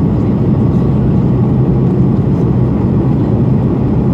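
Steady cabin drone of an Airbus A220-300 in flight on approach, heard from a window seat: the noise of its Pratt & Whitney PW1500G geared turbofans and the airflow, deep and even, with no changes.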